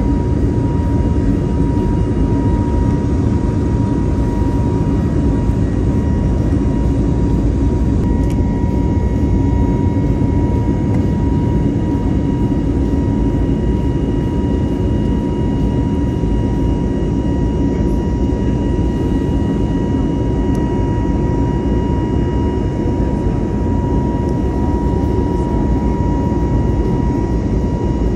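Jet airliner cabin noise: the turbofan engines run with a steady, dense rumble and a constant high whine over it, with no change in power.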